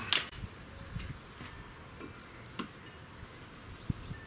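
A Gamo Hunter 220 .177 breakbarrel air rifle is handled while being reloaded and set onto its bipod between shots. One sharp metallic click comes at the start, then a few softer clicks and knocks.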